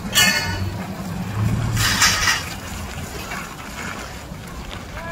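Canvas-backed military truck engine running low as it pulls away, with a short burst of hissing noise about two seconds in.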